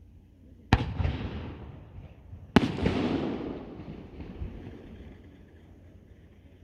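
Two aerial firework shells bursting about two seconds apart, each a sharp bang followed by a long rolling rumble that dies away over a couple of seconds.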